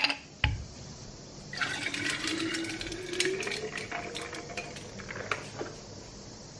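A dark drink poured over ice cubes into a glass bottle: a splashing pour whose pitch rises slowly as the bottle fills. It is preceded by a couple of sharp glassy clinks.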